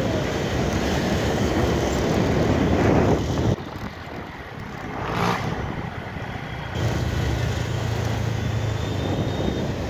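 Wind and road noise on a moving rider's microphone with city traffic around, over a low steady hum. About a third of the way in it suddenly turns quieter for some three seconds, with a brief swell like a vehicle passing, then picks up again.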